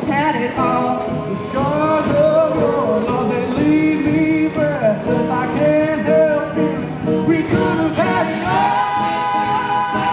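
Mixed-voice show choir singing in harmony, several voice parts holding notes and sliding between them.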